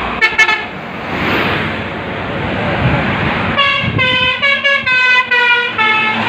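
Tour bus's musical basuri air horn sounding: two quick toots right at the start, then from about three and a half seconds in a tune of stepped notes lasting a little over two seconds. Steady road and engine noise runs underneath.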